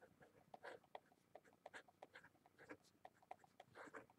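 Faint scratching of a felt-tip marker writing on paper, in many short, irregular strokes.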